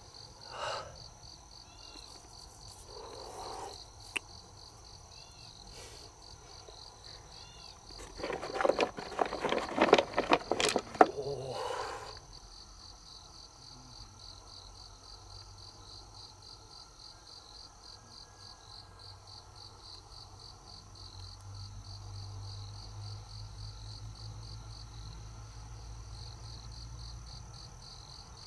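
Insects chirring steadily in the background, a high, rapidly pulsing trill. About eight seconds in comes a loud burst of rustling and knocking that lasts about four seconds.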